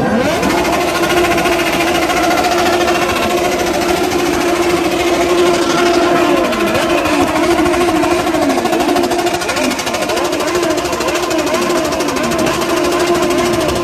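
Dozens of motorcycle engines, mostly Kawasaki sport bikes, being revved together in a group rev: a dense, steady engine drone with individual bikes' revs rising and falling over one another throughout.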